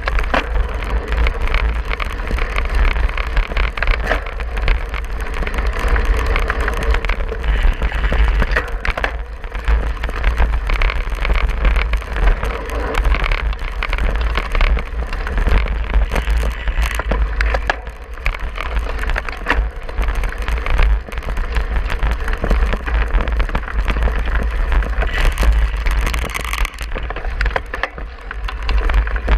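Cyclocross bike ridden at speed over bumpy grass: wind buffets the handlebar-mounted microphone with a heavy low rumble, the tyres hiss and rumble on the turf, and the bike rattles and knocks over the bumps many times.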